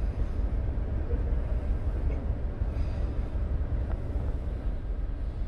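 Steady low rumble of a Freshwater class ferry's machinery running while the ship waits at the wharf, heard inside its upper passenger cabin.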